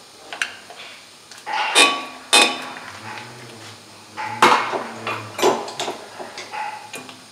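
Metal hand tools clanking and clinking as they are handled and set down: a few sharp knocks with a short ringing after them, two about two seconds in and a cluster a little past halfway, with lighter clicks between.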